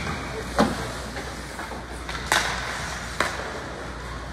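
Three sharp knocks over a steady background noise: one under a second in, the loudest just past two seconds, and a smaller one about three seconds in.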